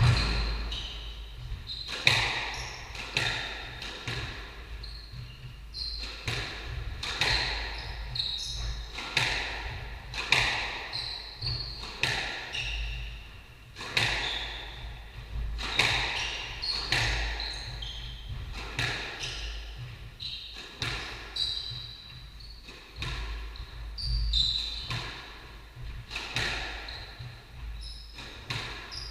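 A squash rally: the ball cracked off rackets and slapping off the walls about once a second, echoing around the court, with shoes squeaking on the wooden floor.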